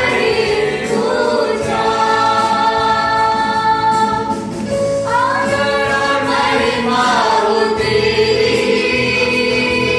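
A small mixed group of male and female voices singing a gospel worship song together into microphones, with electronic keyboard accompaniment. The melody moves through several long held notes.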